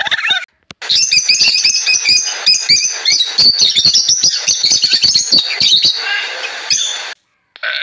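A group of blue-and-yellow macaws calling: a dense, overlapping run of short, high squawks and chirps with sharp clicks, stopping about a second before the end. Helmeted guineafowl calls are heard briefly at the very start.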